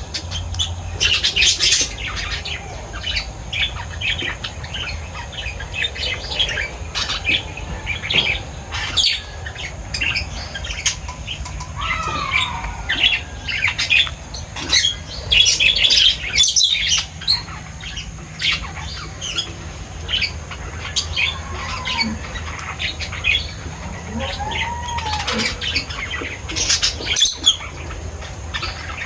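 Pet birds chirping and squawking together in a steady stream of short, high calls, with a couple of lower, sliding squawks, one about twelve seconds in and one later on.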